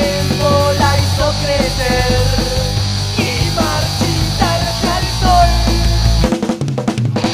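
Punk rock band playing an instrumental passage: guitars, bass and drums under a bending, sliding lead melody. Near the end the bass drops out and the band plays a few short stop hits.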